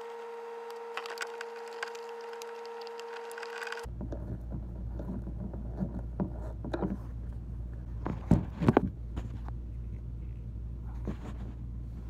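A steady hum that cuts off suddenly about four seconds in. Then handling noise, scraping and scattered clicks as a mounting screw is worked by hand into the plastic valve bracket on the back of a Dometic RV toilet, with two sharper clicks about eight seconds in.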